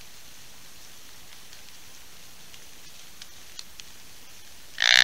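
Steady rain falling on the woods, with a few faint raindrop ticks. Near the end, one short, loud, buzzy grunt from a hand-blown deer grunt call.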